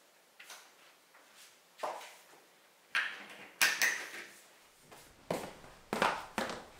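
Tall pantry cabinet doors being handled and pushed shut, with a few light knocks and then two sharp clacks about three and a half seconds in as they close. A run of quicker taps and footsteps follows.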